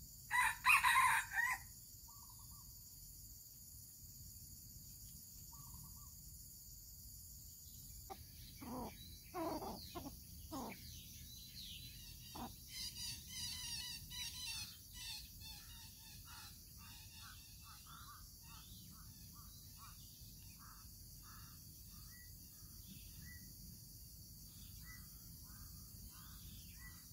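Red junglefowl rooster crowing: a loud crow just after the start and another burst of crowing about a third of the way in, followed by a run of shorter, softer calls. A steady high insect drone runs underneath.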